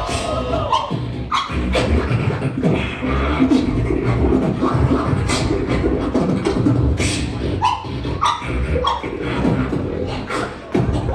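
Solo human beatboxing in a competition round: sharp mouth-made drum hits over a continuous deep bass.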